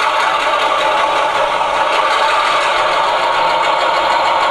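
Diesel switcher engine sound from a Loksound 5 DCC sound decoder, played through the small speaker of an HO-scale Walthers SW7, running steadily with a light rhythmic chug as a little throttle is applied and the model moves off. The sound is thin, mostly mid and upper pitches with little bass.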